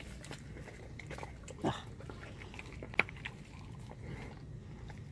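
Alaskan Malamute chewing a raw turkey wing, with scattered crunches and clicks of teeth on the raw bone, the sharpest about three seconds in.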